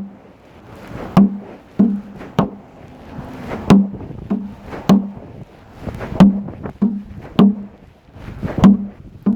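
A series of sharp knocks, about one every 0.6 s with a couple of longer gaps, each followed by a short low ring.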